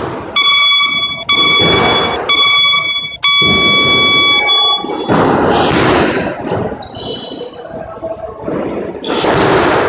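Electronic buzzer sounding a steady high tone in about four pulses of roughly a second each, stopping about four and a half seconds in, followed by loud bursts of rushing noise.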